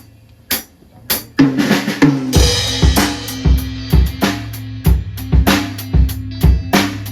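A live rock band starting a song: three sharp clicks about half a second apart count it in, bass and guitar come in about a second and a half in, and the full drum kit crashes in about a second later with a steady beat.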